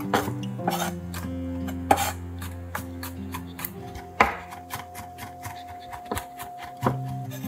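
Chef's knife mincing garlic on a wooden cutting board: a run of quick, irregular blade knocks on the wood, about three a second.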